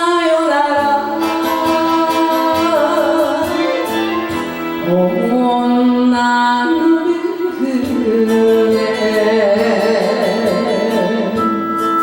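Enka karaoke music: a singing voice with heavy vibrato over a backing band that plays without a break.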